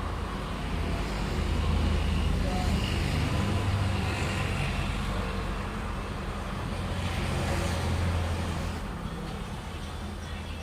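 An engine running with a low, steady hum, swelling louder twice.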